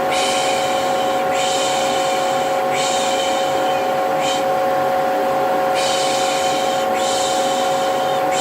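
Vacuum cleaner running with a steady hum, while a person repeatedly shushes over it ('pış pış'), each hiss lasting about a second, with a pause of a second or so around the middle. This is lulling white noise of the kind used to settle a baby.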